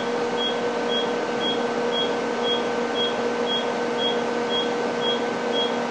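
980 nm diode laser (Multidiode Endo laser) giving a short high beep about twice a second as it fires pulses of 100 ms with 400 ms pauses, over a steady machine hum.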